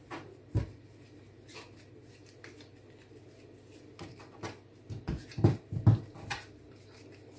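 Soft thuds and pats of dough pieces being set down and pressed by hand onto a kitchen countertop, with one about half a second in and a quick run of them about five to six seconds in.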